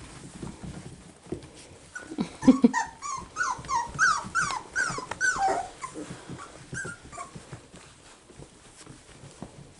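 Six-week-old cockapoo puppies whimpering: a quick run of short, high, falling cries between about two and six seconds in, and one more shortly after, over faint light ticks.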